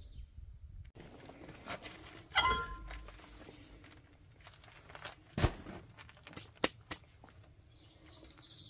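Clicks and metal clinks of hand work on a Jeep's rear drum brake while fitting a parking brake cable: one ringing metallic clink about two and a half seconds in, and sharp clicks around five and a half and six and a half seconds in.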